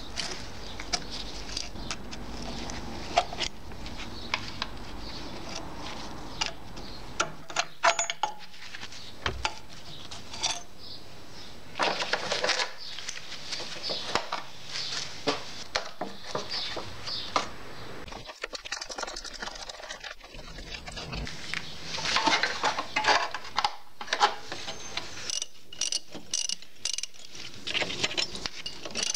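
Hand tools and loose metal parts of a lawn mower being worked: scattered metallic clicks, clinks and knocks throughout, with bursts of rapid clicking later on.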